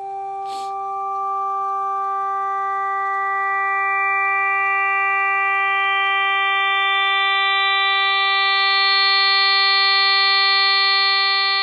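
A steady synthesized note built from twelve sine-wave oscillators in Xfer Serum, set on the harmonics of one fundamental. The higher harmonics fade in one after another over the first several seconds, so the tone grows louder and brighter toward a brass- or trumpet-like timbre. A short click sounds about half a second in.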